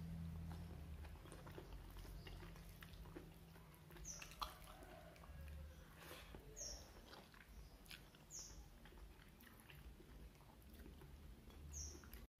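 Faint chewing and lip-smacking of a person eating rice and chicken curry with her fingers, with small mouth clicks now and then.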